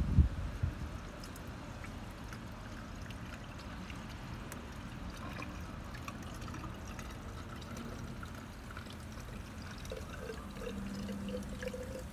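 A diluted acid-and-water solution poured from a bucket in a thin stream into the open top of a Pentair IntelliChlor salt cell, trickling steadily. A single thump right at the start.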